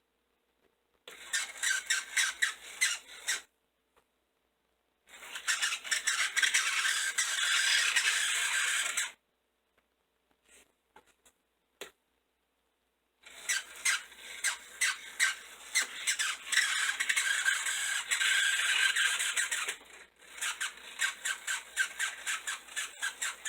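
Aristocraft 0-6-0 model locomotive's electric motor and gearing run on the bench in four bursts of several seconds each, a harsh rasping chatter with rapid stutters, likened to an angry chipmunk.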